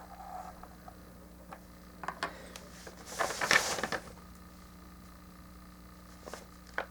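Plastic model kit parts being handled: a few small clicks, then a louder plastic rustle about three seconds in and another click near the end, over a low steady hum.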